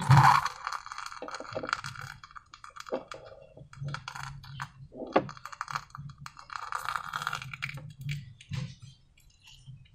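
Slime being worked by hand: a run of irregular small sticky clicks and crackles, with a louder squelch at the very start.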